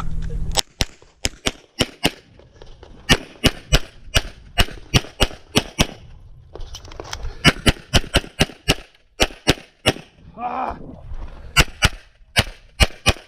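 Rapid 9mm pistol fire from a CZ SP-01 in a practical shooting stage: dozens of shots in quick pairs and strings. There are short breaks about six seconds in and about ten seconds in, where the shooter moves between positions.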